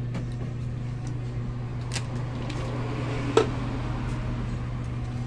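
Steady low hum with two light clicks. The second and louder click comes about three and a half seconds in, as the soldering iron is lifted off the circuit board and set down.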